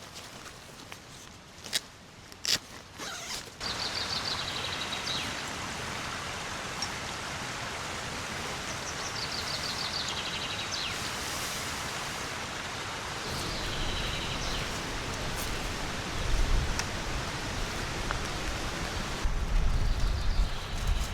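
Steady rushing water noise that starts a few seconds in, after a few sharp knocks. A high trilling call comes through it several times, and low gusty rumbles come twice near the end.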